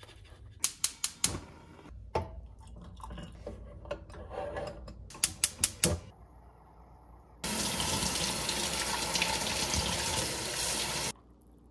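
Kitchen tap running onto a stovetop moka pot for about four seconds, then shut off abruptly near the end. Before that, a series of light metallic clicks and knocks as the moka pot's parts are handled.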